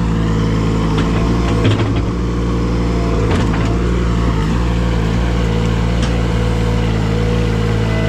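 A large engine running steadily at constant speed, with a few short knocks over it, typical of machinery at work on a tree removal job.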